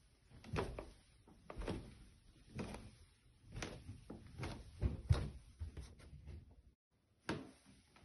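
Footsteps on a staircase: a steady series of dull thuds, about one step a second. The sound cuts out for a moment near the end, then the steps resume.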